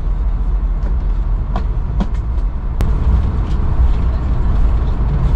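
Cabin noise of an Airbus A220 airliner taxiing after landing: a steady low rumble with a few light clicks and rattles.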